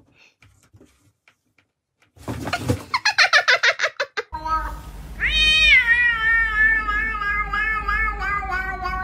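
A grey cat gives one long, drawn-out meow that rises sharply at the start and is then held with a wavering pulse, beginning about halfway through. Before it comes a quick stuttering run of short sounds.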